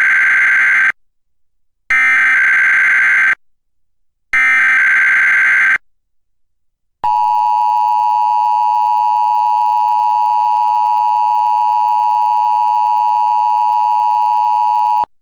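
Emergency Alert System SAME header: three bursts of warbling digital data tones, each about a second and a half long with a second's gap between them. About seven seconds in, the two-tone EAS attention signal (853 and 960 Hz together) comes in, holds steady for about eight seconds and cuts off sharply.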